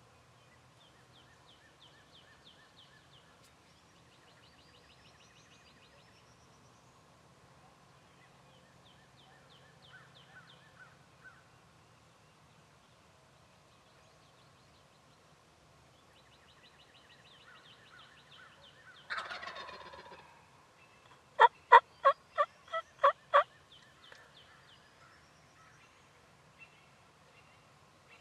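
Wild turkey gobbling once, a falling rattle about a second long, followed shortly by a run of seven loud, evenly spaced turkey yelps. Songbirds trill faintly throughout.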